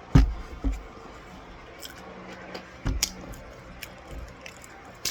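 A few short knocks and crackles of a spoon working in cornstarch: a heavy one at the start, another just after, and a pair about three seconds in.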